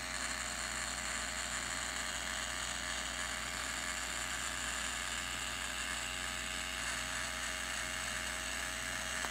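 Small electric motor of a handheld chocolate pen whirring steadily as it pushes melted chocolate out through the nozzle.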